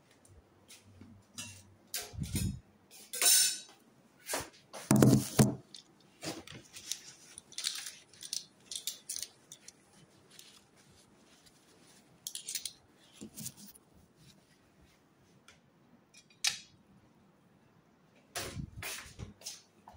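Irregular clinks, knocks and rustles of dishes, utensils and handling in a kitchen, with a few louder dull thumps about two and five seconds in and again near the end.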